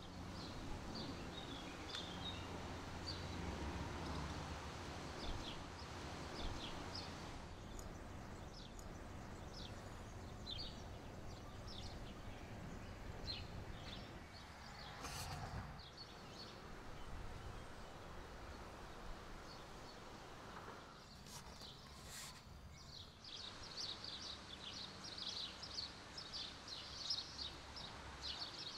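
Birds chirping in short, repeated calls over a faint, steady outdoor background rumble; the chirping grows busier near the end.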